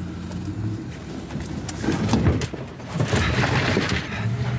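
A four-wheel-drive truck's engine running as the truck rams through a fallen tree, with a spell of cracking and crunching about one and a half seconds in. About a second of rushing, scraping noise follows before the steady engine hum returns.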